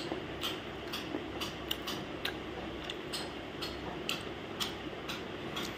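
Close-up chewing of something hard and crunchy: crisp, sharp crunches about twice a second over a steady low room hum.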